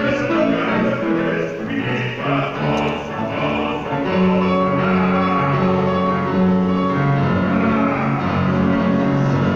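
A male bass-baritone singing a song with grand piano accompaniment, with long held notes.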